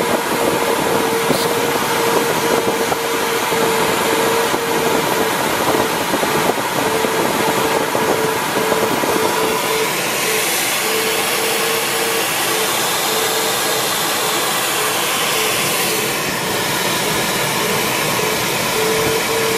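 Airflow rushing over the canopy of a Duo Discus glider in engineless flight, a loud steady hiss. Through it an electronic variometer sounds a run of short beeps at one pitch, stopping for a couple of seconds about halfway through and again near the end.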